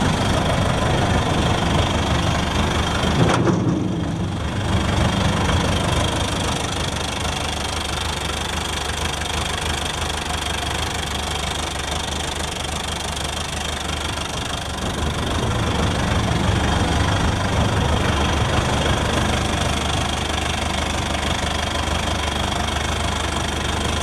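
Turbocharged diesel engine of an aircraft towing tractor idling steadily, heard close at the open engine compartment.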